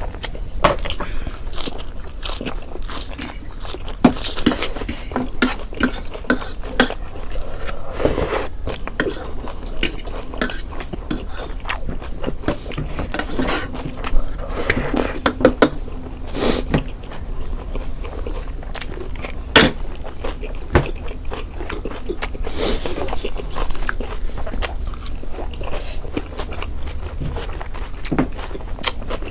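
Close-miked eating sounds: utensils clicking and scraping against dishes, mixed with chewing, as noodles and side dishes are eaten.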